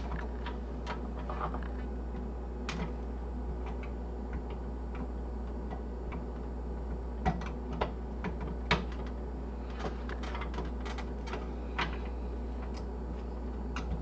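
Irregular light clicks and rustles of wiring and plastic connectors being handled and pushed into place inside a desktop PC case, over a steady low hum.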